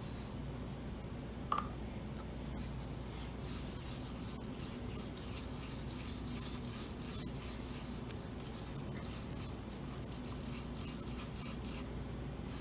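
Wooden stir stick scraping and swishing around the inside of a paper cup, mixing two-part Dragon Skin 30 silicone rubber, over a steady low hum. A brief click about one and a half seconds in.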